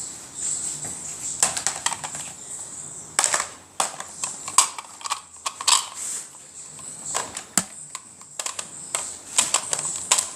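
Toy bolt-action dart rifle being handled: irregular plastic clicks and clacks.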